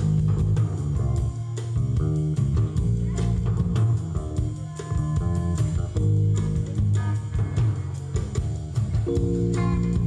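Live rock band playing through stage speakers: electric guitar, bass guitar and drum kit, with heavy bass notes and a steady beat of drum hits.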